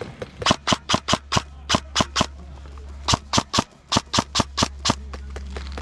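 Airsoft gun firing rapid single shots, two quick strings of about eight or nine sharp cracks each, with a short pause between, over a steady low rumble.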